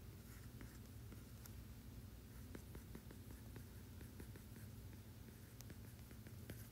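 Faint, irregular light taps and scratches of a stylus on a tablet screen as an equation is handwritten, over a low steady hum.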